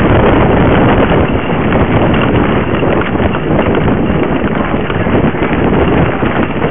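Mountain bike riding fast down a dirt trail, heard from a camera mounted on the bike: tyres crunching over dirt and stones and the bike rattling over bumps in a dense run of small knocks, with wind buffeting the microphone.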